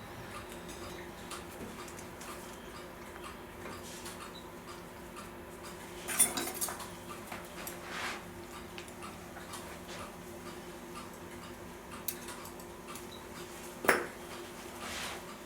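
Small metal clock parts and tools clinking against each other and the bench during reassembly of a clock's time train: two sharp metallic clinks, about six seconds in and near the end, with a few lighter taps between.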